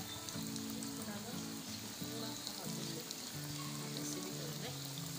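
Dough pinwheels deep-frying in hot oil in a pan: a steady sizzle of oil bubbling around the pieces, with background music of low notes changing in steps underneath.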